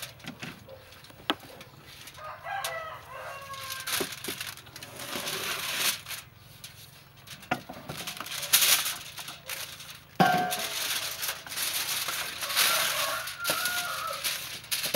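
Aluminium foil crinkling and rustling as it is pressed and folded into a baking tray. A few short chicken calls come in about two and a half seconds in, around ten seconds, and again near the end.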